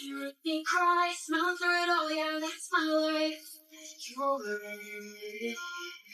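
A singing voice holding long sustained notes, the melody stepping down to lower notes about four seconds in, likely from a song playing on the stream.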